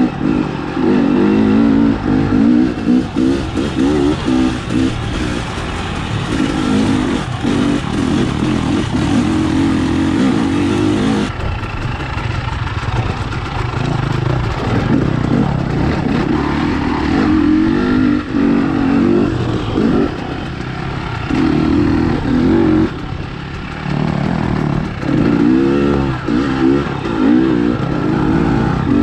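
KTM enduro dirt bike engine revving up and down as it is ridden up rocky singletrack, heard close up from the bike itself, with the pitch rising and falling with the throttle.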